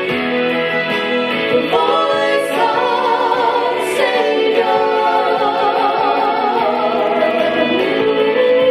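Gospel music: instrumental backing under a sung melody of long held notes with vibrato, without clear words.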